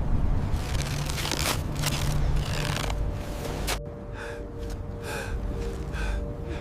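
Storm wind with a rhythmic rasping sound repeating about twice a second, like laboured breathing or steps in snow. About four seconds in it turns quieter and a faint steady hum sets in under the softer rasps.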